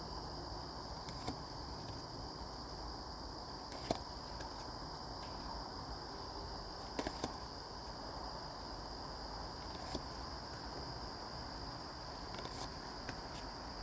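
A few light taps and clicks of oracle cards being handled and set down, over a steady background hiss with a faint high whine.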